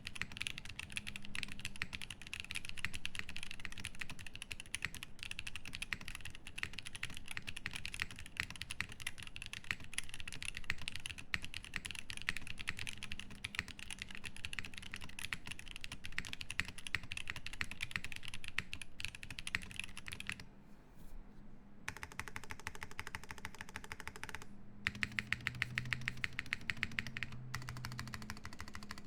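Continuous fast typing on a Frog TKL mechanical keyboard with lubed Drop Holy Panda tactile switches on an aluminium plate, GMK keycaps, a dense stream of keystroke clicks. After a short pause about twenty seconds in, a different run of sharper clicks follows, with a quick evenly spaced burst near the end.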